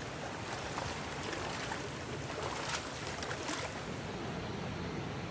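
Mountain stream running steadily over rocks, with a few brief light splashes about half a second to three and a half seconds in.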